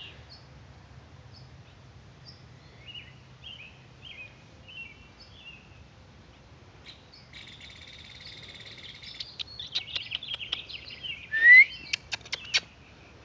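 Songbirds chirping in short scattered calls, thickening into steady twittering for a couple of seconds past the middle. Near the end a short rising squeak, the loudest sound, and a quick run of sharp clicks.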